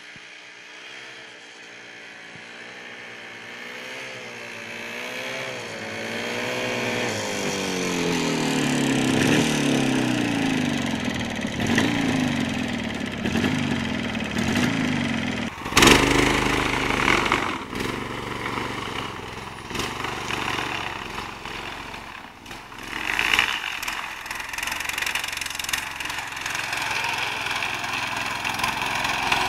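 Small engines of homemade snowmobiles running. The first grows steadily louder as it comes closer, its pitch wavering up and down with the throttle. About halfway through the sound cuts abruptly to another machine running close by, which revs up louder a little later.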